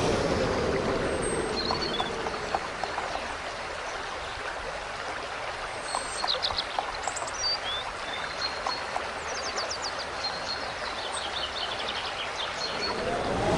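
Steady rush of flowing water with small birds chirping on and off, mostly in the middle stretch. A passing whoosh fades out in the first two seconds, and another builds near the end.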